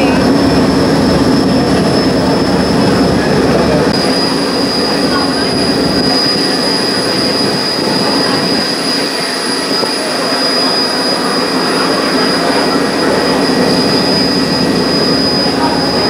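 Ferryboat under way: its engine runs with a steady drone and a high, constant whine above it, and water rushes along the hull. The whine shifts slightly in pitch about four seconds in.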